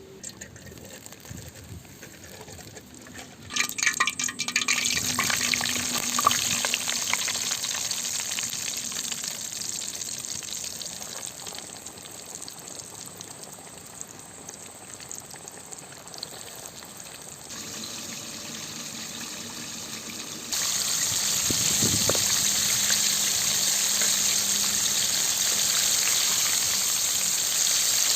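Coated chicken pieces going into hot oil for deep-frying a few seconds in, setting off loud sizzling that slowly dies down. The sizzling steps up louder again about two-thirds of the way through.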